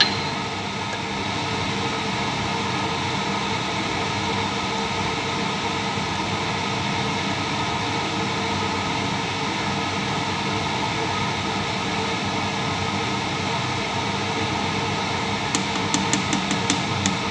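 A steady fan-like whir with a faint hum over the stove. Near the end comes a quick run of light clicks, like a metal spoon knocking and scraping against the frying pan while stirring.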